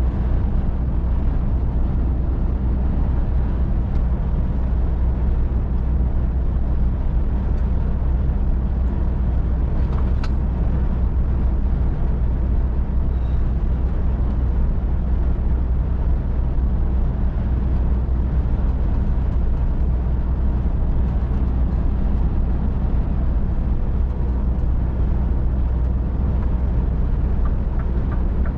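Scania R450 truck's 13-litre straight-six diesel engine running steadily at motorway cruise, heard from inside the cab as a low drone over tyre and road noise. A brief click about ten seconds in.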